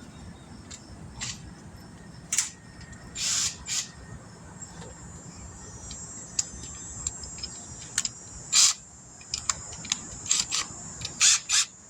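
Hand tools working a tire puncture: scattered clicks and several short scraping or hissing strokes, heard over a low steady rumble.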